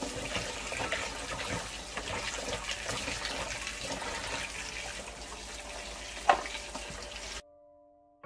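Kitchen tap running into a plastic bowl of chopped carrots in a stainless steel sink while hands swish and rinse them, with one sharp knock about six seconds in. The water sound cuts off suddenly near the end, and soft background music follows.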